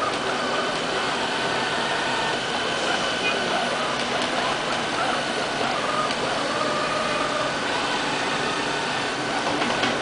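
Robot vacuum cleaner running with a steady, even whir from its motors.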